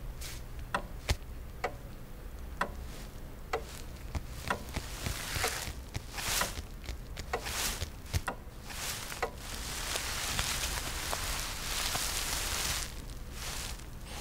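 Sharp ticks about once a second over a low steady hum. About ten seconds in comes a few seconds of soft rustling as a hand in a disposable protective coverall and glove reaches for an electric guitar.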